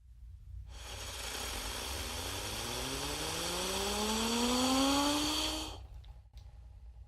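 Cartoon UFO whistle sound effect: a slowly rising whistle over a hiss, growing louder for about five seconds and then cutting off suddenly, followed by a short click.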